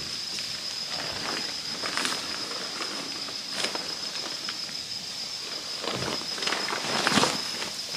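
Footsteps crunching and rustling through dry forest leaf litter, loudest about seven seconds in, over a steady high-pitched insect drone.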